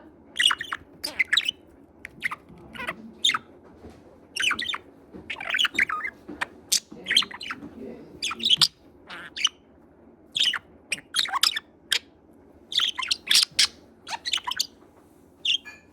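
Budgerigar chattering: quick clusters of short, sharp chirps and clicks, a burst about every second with short pauses between.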